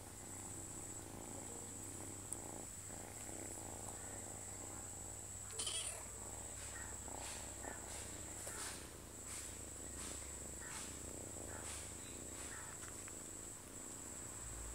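Domestic cat purring while a kitten nurses from her. In the middle stretch there is a run of soft, regular ticks about twice a second.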